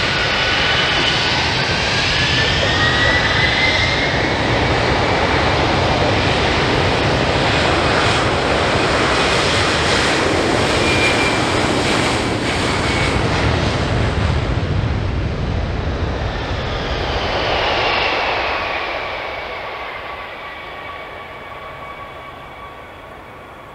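Boeing KC-46 Pegasus tanker's two Pratt & Whitney PW4062 turbofans at high thrust during a high-speed taxi run. A rising whine comes in the first few seconds as the engines spool up, then loud jet noise as the aircraft passes, fading steadily over the last several seconds as it moves away.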